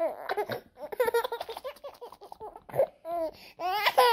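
A woman and a baby laughing together, with the baby's giggles and babbling in short bursts.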